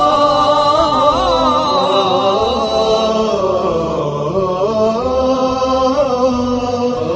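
A voice chanting in long, held notes that slide slowly from pitch to pitch.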